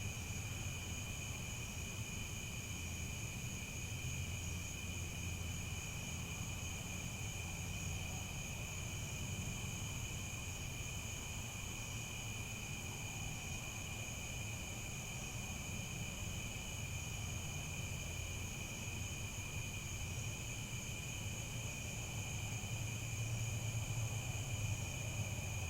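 Chorus of crickets chirping in a steady, unbroken drone of high tones, over a low rumble that swells slightly near the end.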